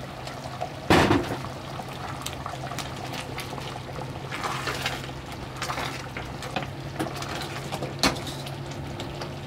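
Pot of stew bubbling on the stove over a steady low hum, with a loud clank of cookware about a second in and a sharper knock near the end.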